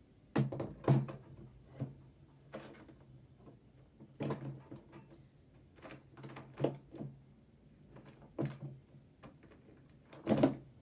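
Irregular knocks and clunks from a sewing machine being handled and worked on by hand, a few single knocks every second or two, the loudest about a second in and near the end.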